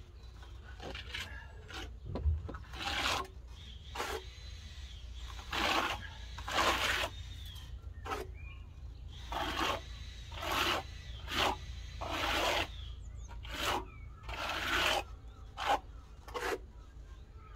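A hand float scraping over wet render on a cement-board wall, in about sixteen separate rubbing strokes, each under a second and irregularly spaced.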